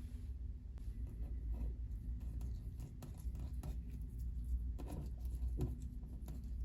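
Slime being mixed by hand, giving an irregular run of small sticky clicks and pops, with two louder ones about five seconds in.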